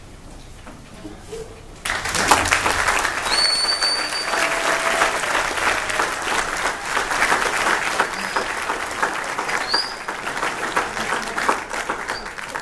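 Audience clapping, starting suddenly about two seconds in and going on steadily, with a few short high whistles over it.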